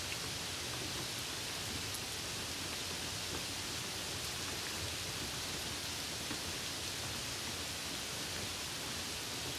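Rain falling in a steady, even hiss, with a few faint ticks of drops.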